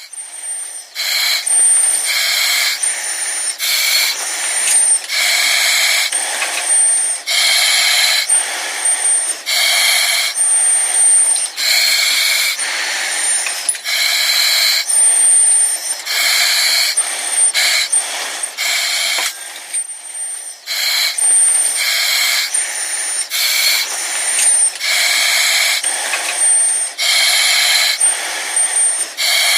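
Breathing through an oxygen mask: hissy inhalations and exhalations alternating about once a second, with a thin high whistle on many of the breaths.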